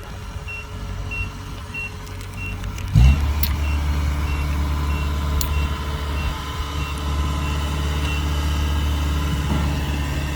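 Warning beeper on a Kubota combine harvester beeping about twice a second. About three seconds in, the diesel engine starts with a loud burst and settles into a steady low run. The beeping stops near the end.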